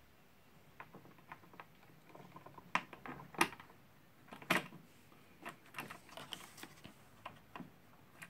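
Scattered light clicks and taps of the CPU water block and its mounting screws being fitted onto the motherboard, the loudest about three and four and a half seconds in.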